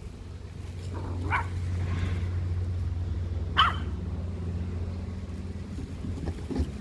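A dog barks twice, short sharp barks about two seconds apart, the second louder, over a low steady rumble that swells and then fades.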